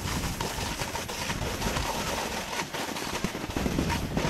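Snowboard sliding and scraping over packed snow: a steady rough hiss full of crackling chatter.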